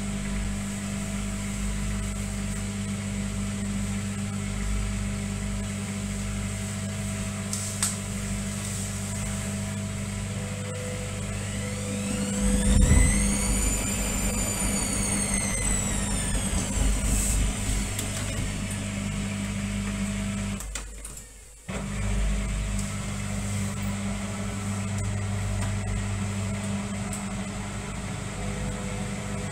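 Indesit front-loading washing machine on an intermediate spin: the motor runs with a steady hum and a whine that rises and then falls as the drum speeds up and slows down. The sound dips briefly about two-thirds through, then the drum goes back to tumbling the wet towels.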